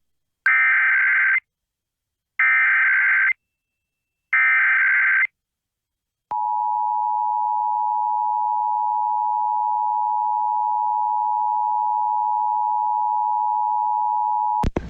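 Emergency Alert System header: three short bursts of the digital SAME data signal, about two seconds apart. These are followed, about six seconds in, by the steady two-tone EAS attention signal, held for about eight seconds. Together they open a Required Monthly Test and announce that a spoken alert message follows.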